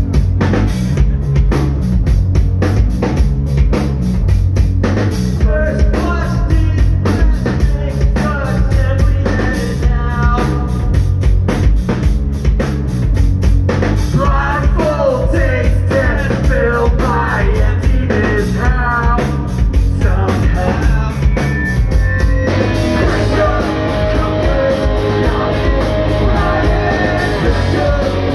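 Live hardcore punk band playing a song: pounding drum kit, distorted electric guitar and bass, and shouted vocals. The band's sound thickens about three-quarters of the way through.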